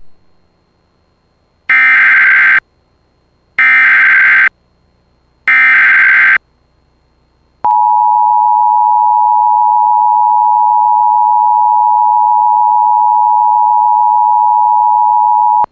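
Emergency Alert System broadcast: three bursts of warbling SAME header data tones, each about a second long and about a second apart, carrying the code for a flood warning. These are followed by a steady, loud attention tone held for about eight seconds that cuts off abruptly.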